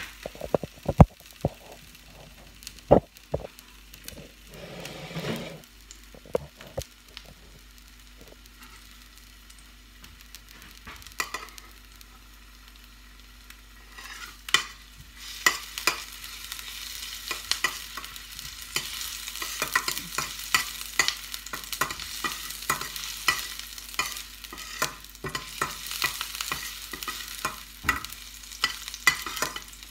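Chopped garlic frying in oil in a stainless steel frying pan, stirred with a metal spoon that clicks and scrapes against the pan. The sizzle starts about halfway through and grows louder.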